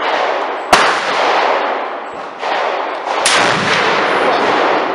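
Gunshots at a range: a sharp crack about a second in, then a second, longer-ringing blast a little after three seconds in, each trailing off in echo. Among them is the first round fired from a DA50 .50 BMG conversion upper on an AR-15 lower.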